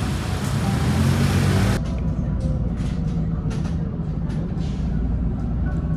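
Road vehicle running with a steady low rumble. A loud hiss covers the first two seconds and cuts off abruptly, and faint short scuffs and clicks sound over the rumble.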